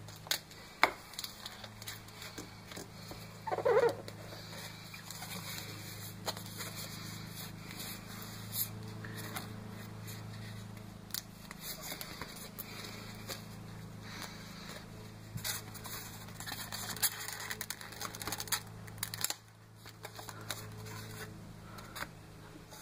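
Adhesive tape being pulled off the roll, torn and pressed onto a foam model airplane: scattered crackles, rips and light handling clicks, with a louder rasp about four seconds in.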